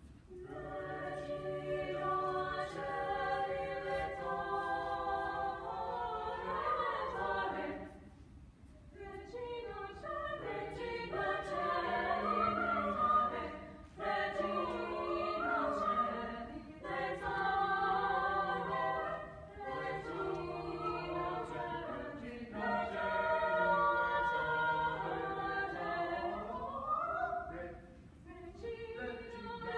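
A small group of student voices singing a cappella in several parts, in long phrases with short breaks about 8 and 14 seconds in and near the end.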